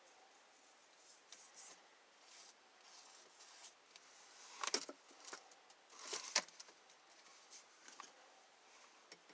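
Quiet handling noises from hands working with small repair materials: soft rustles and scattered light clicks, with a few sharper clicks about halfway through.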